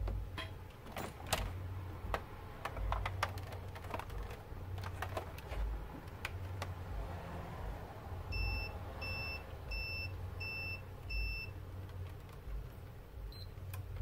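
Clicks and knocks from a PS4's plastic shell being handled, then five short, evenly spaced electronic beeps about two-thirds of a second apart, over a steady low hum.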